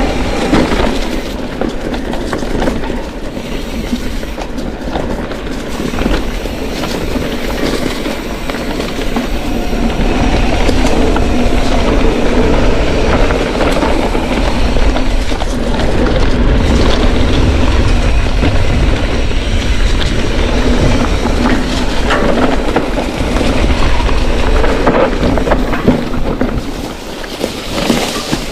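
Mountain bike rattling and clattering as it rides down a rough, rocky trail: tyres on stones, with chain and frame clatter.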